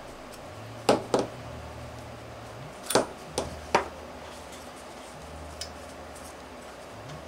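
Metal parts of a disassembled OS 120AX model glow engine clinking and knocking as the crankcase and its parts are handled on the workbench: two sharp clinks about a second in, then three more around three to four seconds in, over a faint steady hum.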